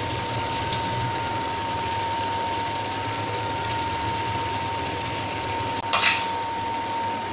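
Steady hum of an induction cooktop's cooling fan with a thin steady whine, under a pan of brain curry simmering. A short sharp hiss about six seconds in.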